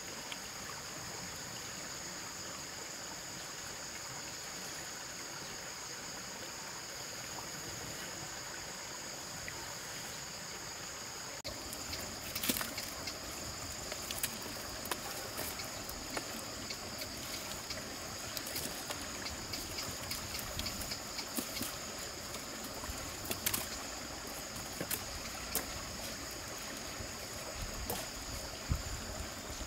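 Stream water trickling, under a steady high drone of insects. From about eleven seconds in, scattered sharp clicks and knocks join the water.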